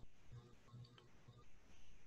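Near silence: room tone with a faint low hum and a few tiny ticks.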